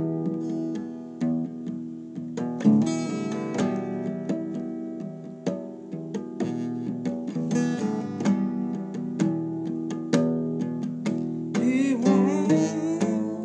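Acoustic guitar being strummed and picked in a steady song accompaniment. A wavering, voice-like note joins briefly near the end.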